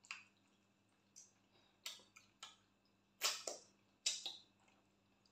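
Wet mouth sounds of eating by hand: short lip smacks and finger-licking while chewing soft kokonte with okra stew, about seven in all, the loudest about three seconds in.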